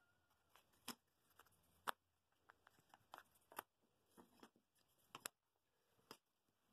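Faint wooden clicks and knocks as the dry-fitted walnut pieces of a small fretwork cradle are pulled apart at their tabs and set down on a table, about a dozen scattered taps, the loudest about two seconds in.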